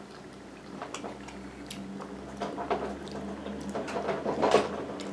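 Eating sounds: metal spoons clinking and scraping in soup bowls, with quiet sipping and chewing between, over a faint steady hum.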